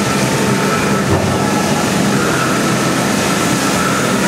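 Steady rumble and hiss as the roundhouse turntable turns with the LMS 3F "Jinty" 0-6-0 tank engine on it, steam hissing from the locomotive.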